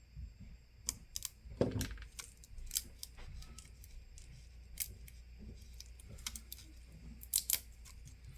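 Scattered small clicks and taps from hands working on a phone screen and its tape, several close together in the first few seconds and two more near the end.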